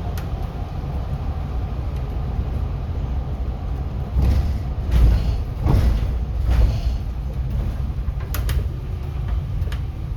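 City bus running, heard from inside the cabin: a steady low rumble of engine and road. It swells louder between about four and seven seconds in, and a few sharp clicks or rattles follow shortly after.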